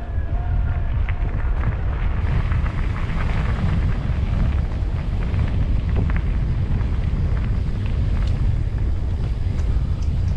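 Wind buffeting the microphone of a fast-moving action camera, a loud steady rumble, over tyres rolling on a gravel trail with scattered small clicks and rattles of stones.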